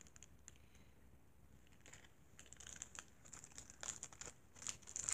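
Small plastic wrapper crinkling in the hands: irregular crackles start about two seconds in and grow busier toward the end.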